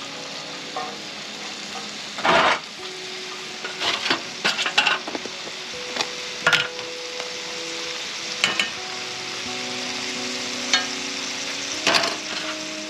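Steak frying in a cast iron skillet: a steady sizzling hiss, broken now and then by short, sharp clacks and scrapes, the loudest about two and a half seconds in.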